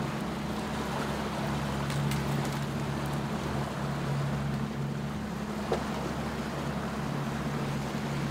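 A motorboat's engine running steadily under way, with the wash of water and wind over it. A single sharp click comes a little past halfway.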